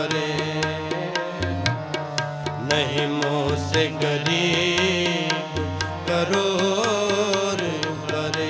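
Sikh kirtan music: harmoniums sustaining chords and melody, with tabla strokes keeping a steady beat and a wavering sung line held between the lyric phrases.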